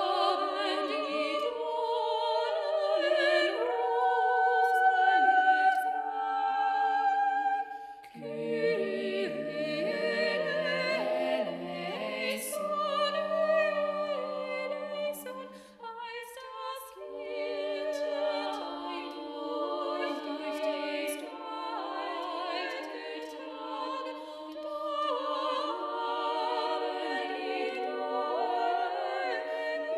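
Four-part a cappella upper-voice choir, two soprano and two alto lines, singing a German Christmas carol in sustained phrases. There are short breaks between phrases about 8 and 16 seconds in.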